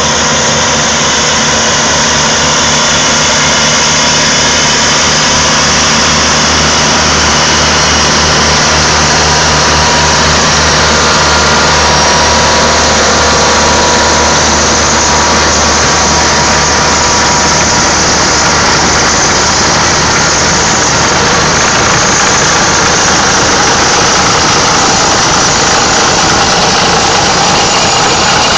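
Tractor diesel engine running steadily while it drives and pulls a Verti-Quake sand slitter through turf, with a continuous mechanical noise from the implement over the engine. The engine's low drone is strongest in the first half and weaker later on.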